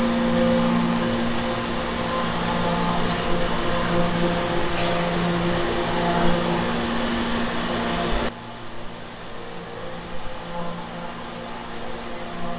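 Food-processing line machinery running: a steady hum with several low tones over a whirring hiss. About eight seconds in it drops suddenly to a quieter hum.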